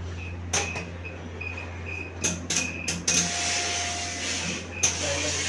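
Industrial steam iron hissing as it presses denim: a few short puffs of steam in the first three seconds, then a longer hiss of about two seconds, over a steady low hum.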